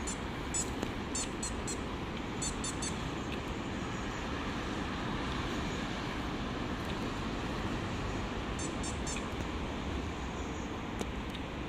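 Steady traffic noise from a busy road, with four short runs of quick high squeaks, three or four at a time, from a dog's squeaky rubber ball.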